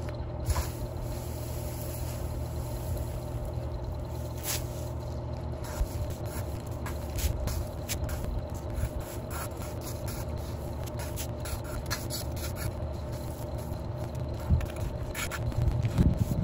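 Metal-tined garden rake scraping and dragging through dry dirt and twigs in repeated uneven strokes, with a steady low hum underneath.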